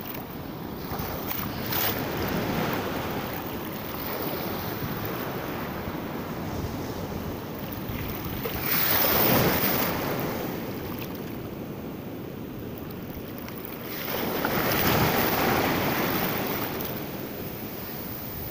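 Shallow beach surf washing in and out over sand, with wind buffeting the microphone. Two louder washes of water come in, about nine and fifteen seconds in.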